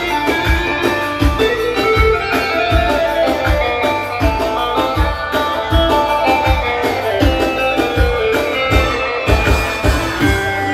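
Instrumental music: melody lines on a plucked string instrument over a steady drum beat of about two strokes a second, with no singing.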